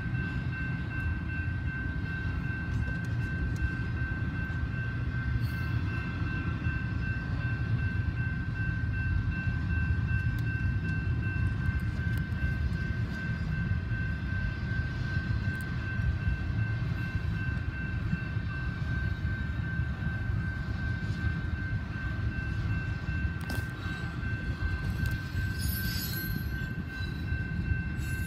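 Union Pacific double-stack container freight train rolling through a grade crossing: a steady low rumble of the passing cars with a thin, steady high-pitched whine over it, heard from inside a car.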